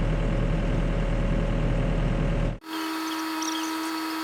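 Mini excavator engine running steadily. About two and a half seconds in, the sound cuts abruptly to a quieter, different steady hum with a few faint high chirps.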